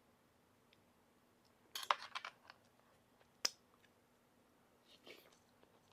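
A few light, sharp clicks: a quick cluster about two seconds in and a single click about a second and a half later, then a faint brief rustle near the end.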